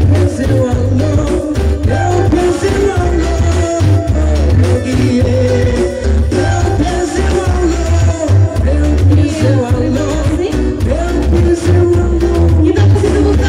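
Music with a sung melody over a heavy, steady bass beat.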